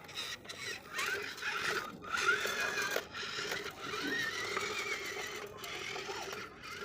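A small electric motor whirring steadily, with a constant hum.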